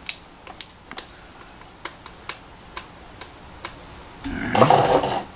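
Screwdriver backing a small screw out of a small plastic fan's motor housing: light ticks about twice a second as the screw turns, then a louder clatter near the end as the parts are handled.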